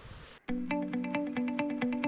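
Background music, a picked guitar-like melody with held low notes, starts abruptly about half a second in after a moment of faint room tone.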